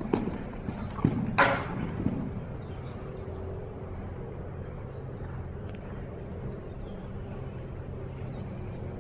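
Horse cantering on sand footing: a few hoof thuds in the first two seconds, one sharper and louder about a second and a half in, then the hoofbeats fade as the horse moves away. A steady low hum lies underneath throughout.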